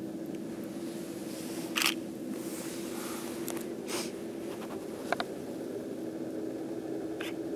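Steady low hum of a McDonnell Douglas MD-11F's jet engines at low power, heard from afar, with a few short sharp clicks of camera handling.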